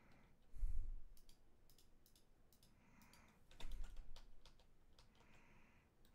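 Computer keyboard and mouse clicks: scattered sharp clicks of keys and buttons, with a couple of dull low thumps about a second in and near the middle.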